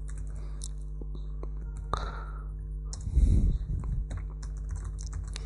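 Scattered clicks of a computer keyboard and mouse as code is typed, growing busier in the second half, over a steady low hum.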